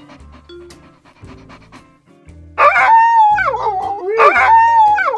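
Dog yelping in pain: two loud, long whining cries, starting about two and a half seconds in, each falling in pitch at its end, over light background music.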